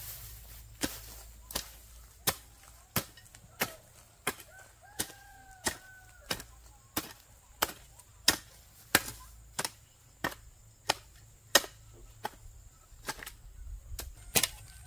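Steady rhythmic chopping with a blade, about three strokes every two seconds, each a sharp knock.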